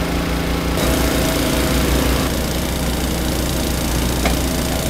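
Small gasoline engine of a vibratory plate compactor running steadily at working speed while driving vinyl sheet pile. A single sharp click near the end.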